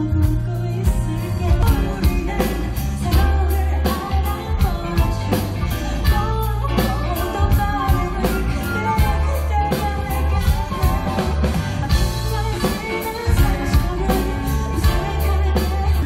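Live band performance: a woman singing into a microphone over electric guitar, bass and drums.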